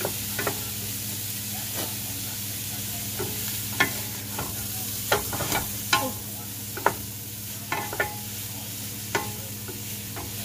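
Squirrel meat and shallots sizzling in a nonstick square frying pan while a wooden spoon stirs them, knocking and scraping against the pan at irregular moments. A steady low hum runs underneath.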